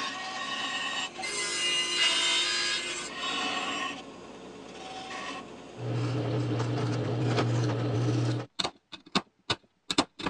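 A bandsaw cutting plywood in several short passes. About six seconds in, a drill press bores holes in plywood, its motor humming steadily under the cutting noise. Near the end comes a quick run of sharp clicks as a chisel pares the row of holes into a slot.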